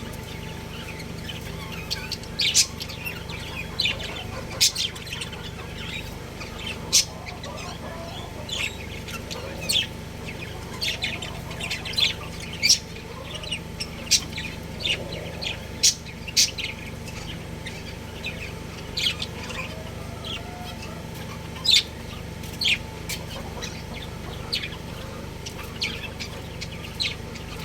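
Budgerigars chirping: short, sharp, high chirps come irregularly, a few every second or two, over a steady low hum.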